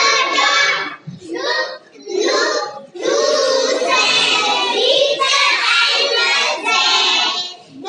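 Young children singing together, in short phrases at first and then a longer unbroken stretch.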